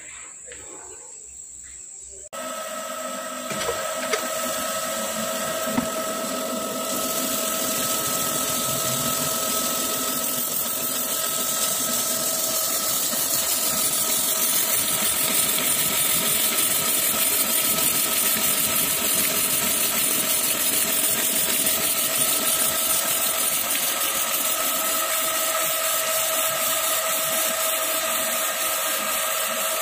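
Cylindrical grinder's wheel grinding a radial drill spindle shaft under flood coolant: a steady hiss with a constant whine, which gets much louder about two seconds in and then holds steady.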